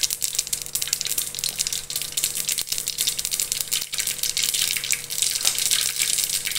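Mustard seeds popping and sizzling in hot oil in a pot as they are tempered: a dense, steady crackle of many small pops over a hiss.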